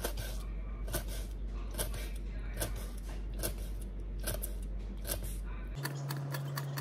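Knife cutting fine crosswise scores into ikan puput on a cutting board before frying: sharp, irregular clicks of the blade. About six seconds in, they turn into a faster, even run of chops.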